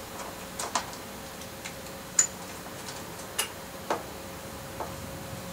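A handful of small, irregular metallic clicks and taps from a mountain bike's V-brake parts being handled and taken off, the sharpest a little over two seconds in, over a faint steady hum.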